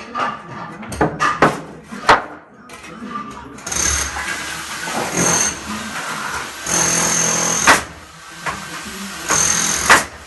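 Construction jobsite work noise: a few sharp knocks in the first two seconds, then a power tool running in repeated short bursts with a high whine, the longest lasting about a second.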